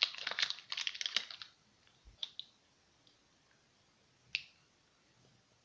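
Crinkling of a foil sweet wrapper being handled, a dense crackle for about a second and a half, then a few faint isolated clicks.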